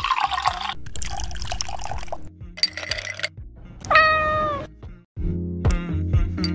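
Liquid poured into a glass over ice, then a single cat meow about four seconds in, falling slightly in pitch. Background music plays throughout and comes in louder after a brief gap near the end.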